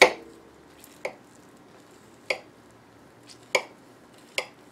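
Carving knife and fork clinking against a ceramic plate while slicing roast beef: five sharp clinks about a second apart, the first the loudest and ringing briefly.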